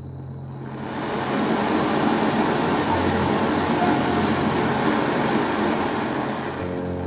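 Canister gas stove burner running through a remote hose adapter, its flame making a steady rushing hiss. The hiss swells about a second in as the gas is turned up, then eases near the end.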